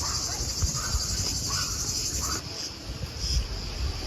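Insects droning in a steady high-pitched chorus that breaks off suddenly about two and a half seconds in, then comes back as a few short pulses. A short, slightly rising call repeats about every three-quarters of a second through the first half, over a low rumble.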